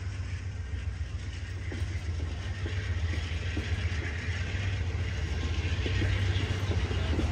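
Amtrak passenger coaches rolling past, steel wheels clattering on the rails over a steady low rumble, getting louder as the train picks up speed.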